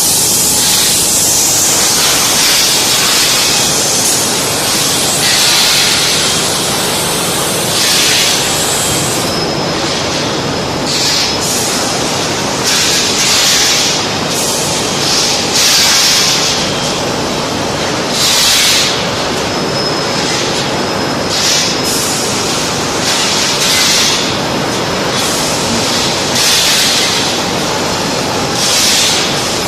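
Automatic pipe and profile painting machine running: a steady, loud mechanical din with repeated hissing bursts about every two to three seconds.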